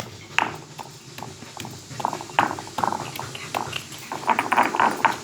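Pestle pounding tulsi leaves, garlic and carom seeds in a mortar to a soft paste: a run of repeated knocks, roughly two a second.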